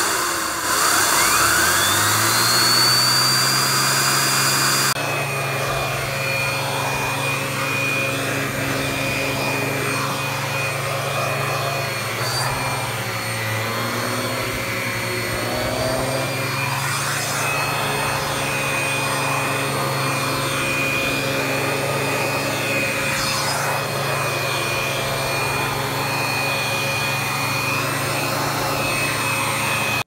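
Vax Power Pet upright vacuum cleaner running with its turbo tool, the brush roll spinning up with a rising whine over the first couple of seconds. About five seconds in the whine cuts off abruptly and the vacuum runs on steadily as the turbo tool is worked over stair carpet.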